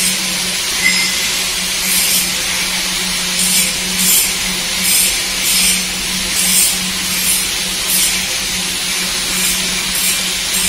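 Hydraulic scissor lift table lowering: a steady hiss that surges in a swish about every three-quarters of a second, over a steady low hum.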